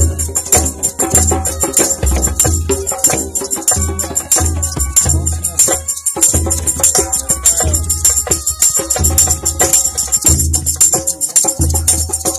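Percussion-driven ethnic folk music: deep, regular drum beats under a continuous tambourine and shaker rattle, with some held melodic notes above.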